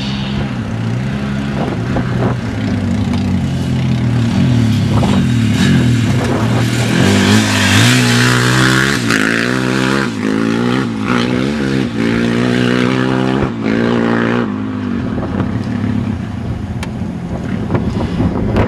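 Polaris Outlaw 525 quad's single-cylinder four-stroke engine revving hard on a dirt track. Its pitch climbs and drops back repeatedly, and it is loudest about midway as the quad comes close.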